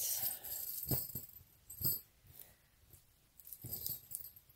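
Gunmetal metal chain necklace with large oval links jingling and clinking as it is handled. A rattle of links in the first second, then single clinks near one and two seconds in and a short jingle near the end.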